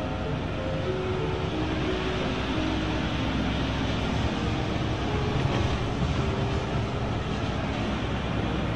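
Lorry engine and tyre noise heard inside the cab while driving: a steady low drone with road rumble.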